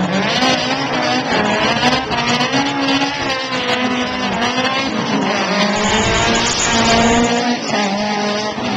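BMW rally car's engine revving hard as it accelerates down the course, its pitch climbing and dropping several times.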